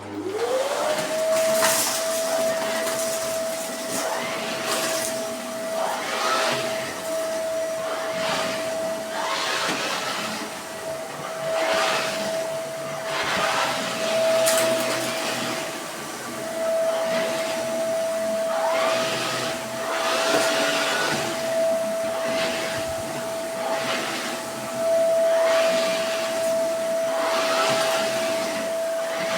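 Vacuum cleaner with a turbo brush switched on: the motor whine rises in pitch as it spins up over the first second or so, then holds steady. Repeated surges of rushing noise come every second or two.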